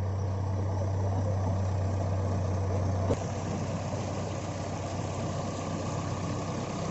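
Diesel engine of a JCB 3DX backhoe loader running steadily. About three seconds in there is a sharp click, and the steady low drone gives way to a rougher engine sound.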